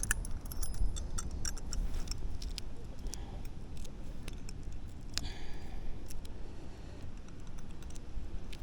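Small metal tools clinking and clicking as they are handled, with a steady low rumble underneath.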